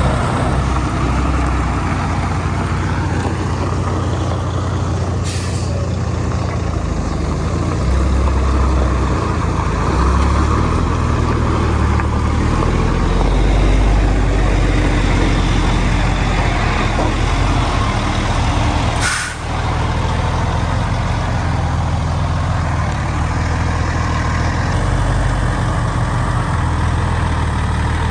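Heavy diesel engine running with a steady low rumble, with a short hiss about five seconds in.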